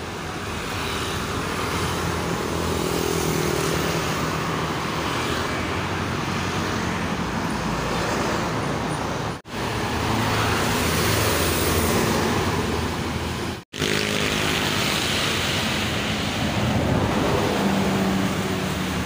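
Road traffic with large buses pulling out and passing, their engines running under motorcycles and tyre noise. The sound cuts out briefly twice.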